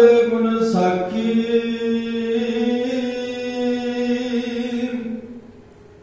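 A voice chanting the Gurbani hukamnama in a drawn-out recitation tone, holding one long, nearly steady note that stops about five seconds in.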